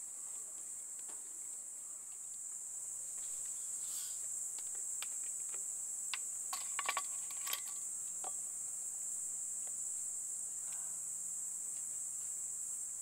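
Crickets chirring, a steady high-pitched insect chorus. About six to seven and a half seconds in, a few light clicks and knocks as a glass beer bottle and a metal cup are handled.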